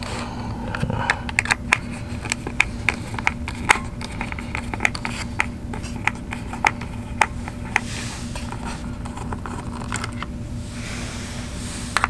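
Irregular small clicks and taps, several a second, as screws are worked out of the main circuit board of an opened FrSky Taranis X9D Plus radio transmitter, with a brief scrape near the end.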